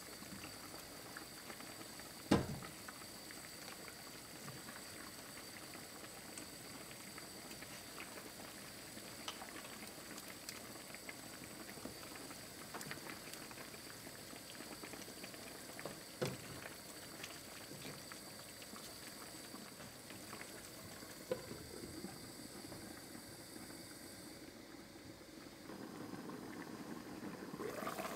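Spicy chicken stew simmering in a stainless steel pan, a faint steady bubbling. There are two sharp knocks against the pan, the loudest about two seconds in and another about halfway through. The bubbling gets louder near the end.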